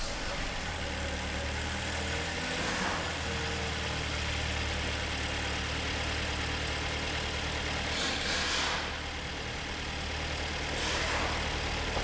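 Rebuilt Hyundai G4KD 2.0-litre four-cylinder petrol engine idling steadily on its first run after an overhaul for scored cylinders and piston knock, with a few short swells of noise. It runs quietly with no knocking.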